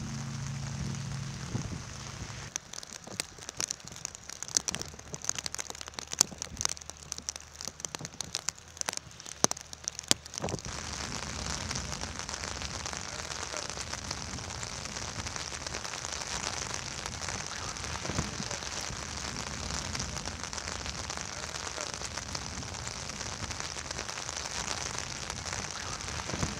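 Steady rain falling, with a patter of sharp raindrop taps for several seconds in the first half.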